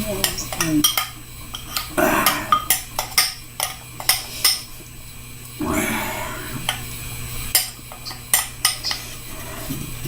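Chopsticks clicking against a bowl while noodles are eaten: many sharp clinks scattered throughout, with longer noisy slurps about two and six seconds in.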